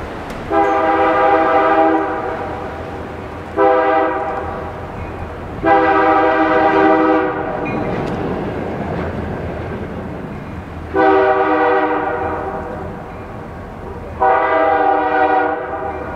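Diesel freight locomotive's air horn sounding at a grade crossing: a long blast, a short one and a long one, then after a pause two more long blasts. Each blast is a chord of several tones, over the steady rumble of the passing train.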